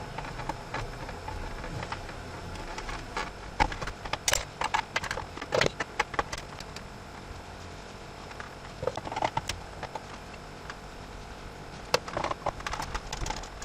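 Scattered light clicks and taps of a screwdriver and loose screws on the plastic trim of a pickup's center console lid as its Torx T20 screws are taken out, coming in short clusters with pauses between.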